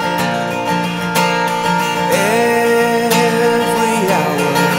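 Instrumental passage of a song: acoustic guitar strumming, with a held note sliding up about halfway through.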